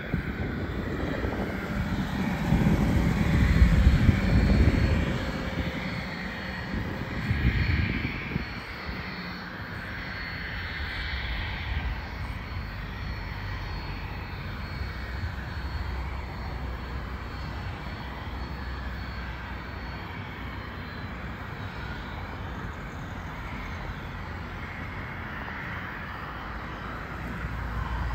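Cessna 550 Citation Bravo's twin Pratt & Whitney PW530A turbofans running at low taxi power: a steady jet hum with a faint high whine that fades after about twelve seconds. Louder, uneven low rumbling fills the first eight seconds.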